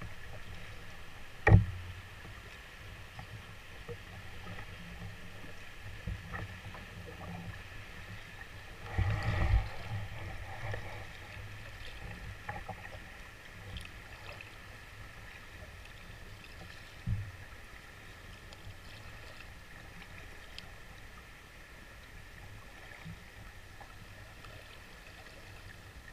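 Water lapping and splashing against a canoe hull as it is paddled through choppy water, with a louder stretch of splashing around nine seconds in. Two sharp knocks: the loudest about a second and a half in, a smaller one around seventeen seconds in.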